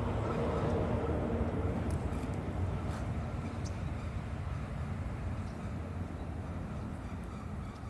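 A steady low rumble of outdoor ambience, easing off slightly toward the end, with a few faint clicks.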